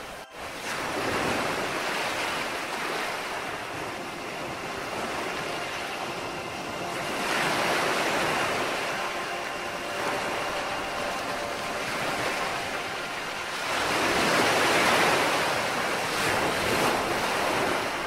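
Ocean surf ambience: waves washing onto a beach, the sound swelling and receding in three big surges about six seconds apart. A split-second gap in the sound comes just after the start.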